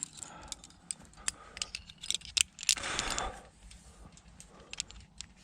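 Metal climbing hardware, carabiners and quickdraws on a harness, clinking and jangling in irregular clicks. A short scuffing rush comes about three seconds in.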